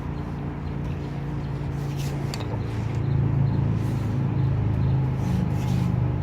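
A low, steady engine hum, louder from about three seconds in, with a couple of faint taps about two seconds in.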